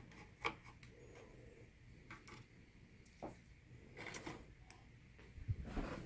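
Faint clicks and light taps of a screwdriver and small metal and plastic parts as a screw is backed out inside an opened DLP projector, a little louder near the end.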